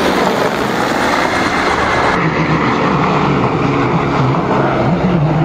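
Mi-24 attack helicopters flying past: a steady, loud rush of rotor and turbine noise. About two seconds in the sound changes, and a low engine tone comes in that wavers up and down.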